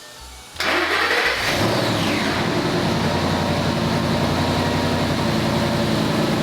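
2011 Ford Mustang GT's 5.0-litre V8 starting on a jump pack. It catches suddenly about half a second in, flares briefly, then settles to a steady idle.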